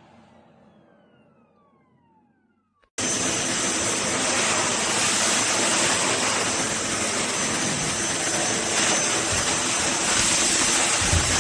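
High-velocity dog blow dryer winding down with a falling whine. About three seconds in it is switched back on with a click and runs loud and steady: a rush of air with a high whine.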